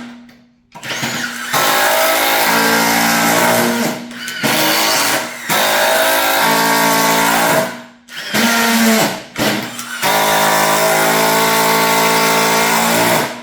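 Cordless impact drivers running flat out as they drive screws, a dense mechanical rattle over a motor whine, stopping and starting several times as the triggers are released and pulled again.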